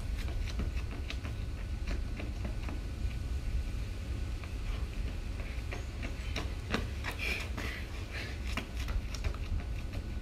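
Wind rumbling on a phone microphone, with faint scattered taps of a runner's footsteps on concrete, a few louder ones about two-thirds of the way through.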